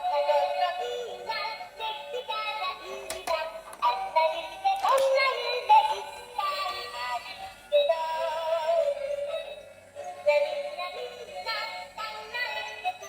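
A thin electronic tune with a synthesized singing voice, starting suddenly and carrying almost no bass.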